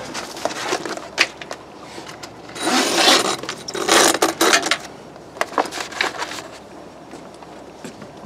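A heavy fabric boat cover rustling and scraping as it is pulled into place and fastened by hand, in two bursts about three and four seconds in, with a few sharp clicks.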